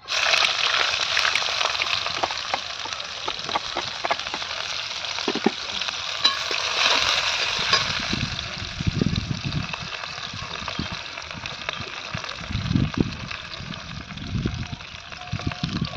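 Food sizzling and frying in hot oil in a kadhai. The sizzle starts suddenly and slowly settles, with scattered crackles and, in the second half, low knocks of stirring in the pan.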